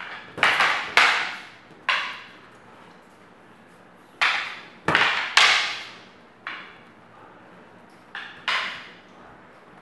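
Fighting sticks clashing in double-stick sparring: about nine sharp, hard clacks in uneven clusters, each echoing briefly in the hall.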